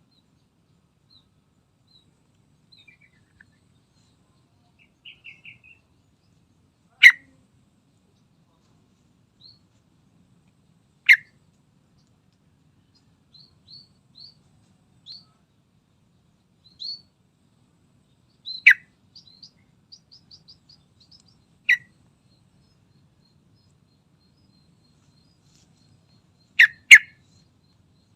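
Yellow-vented bulbul calling: a few short, loud, sharp notes spaced several seconds apart, a quick pair near the end, with soft high chirps in between.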